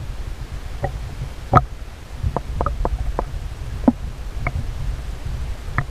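Sound picked up by a camera held underwater in a lake: a steady muffled low rumble, with irregular sharp clicks and taps, about nine of them, the loudest about one and a half seconds in.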